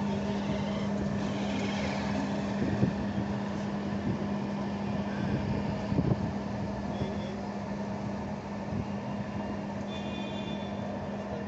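A steady engine hum with a strong low drone over street noise, with two short knocks about three and six seconds in and a brief high-pitched tone near the end.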